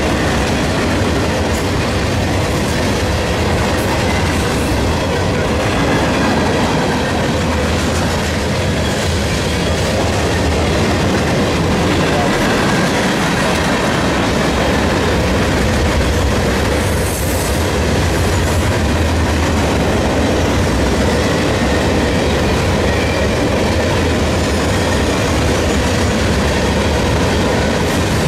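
Freight train cars rolling past: a loud, steady rumble of steel wheels on rail.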